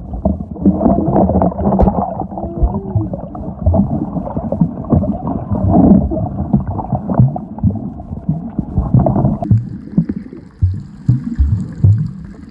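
Muffled underwater sound picked up by a camera held underwater while snorkeling: dull gurgling and sloshing of water with irregular knocks and surges. About nine and a half seconds in it turns thinner and quieter as the camera nears the surface.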